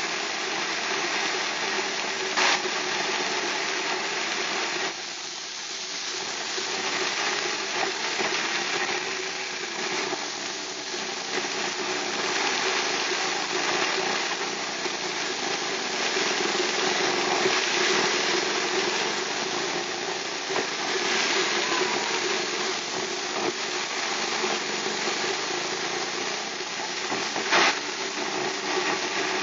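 Steady noise of a car driving on a rain-soaked highway, heard from inside the car: a hiss of rain and tyre spray over a low engine and road drone. Two short sharp clicks sound, one about two seconds in and one near the end.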